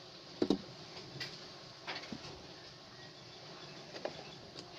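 A few light knocks and bumps as peeled cassava pieces are shifted about in an aluminium pot, the loudest about half a second in, over a faint steady hiss.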